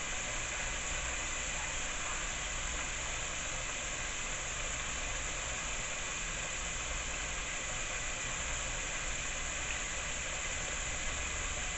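Steady sizzling hiss of food cooking on a hot stove, with a faint low hum beneath it.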